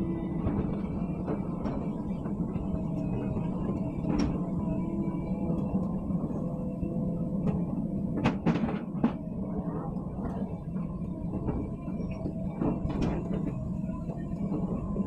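Komatsu PC130-8 excavator's diesel engine running steadily under hydraulic work, with rock knocking and clattering several times as it is loaded into a truck. The loudest knocks come about eight to nine seconds in.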